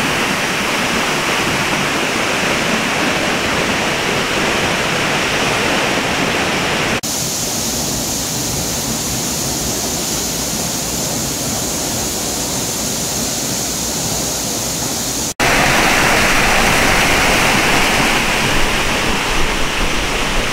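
Steinsdalsfossen waterfall: a steady, loud rushing of falling water. About seven seconds in the sound turns abruptly thinner and hissier, and after a brief drop-out about fifteen seconds in it becomes fuller again.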